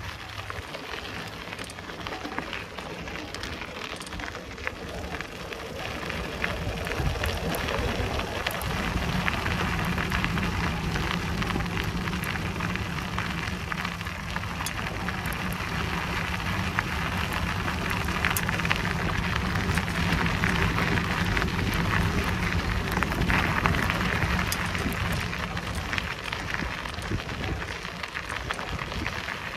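Bicycle tyres rolling over an unpaved forest path: a steady crackling, crunching hiss over a low rumble, growing louder about six to eight seconds in.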